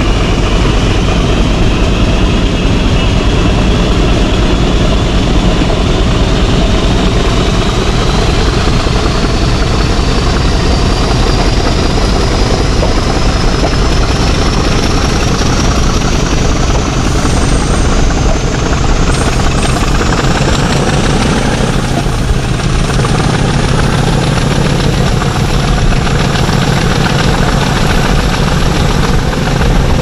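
Class 50 diesel-electric locomotive 50015's English Electric 16CSVT V16 engine working hard under load ("thrash"), heard from the leading coach. A steady heavy engine drone runs under a high whine that climbs slowly in pitch over about twenty seconds.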